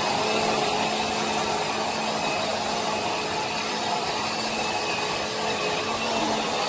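Countertop blender motor running steadily at speed, blending a tomato mix for jollof rice.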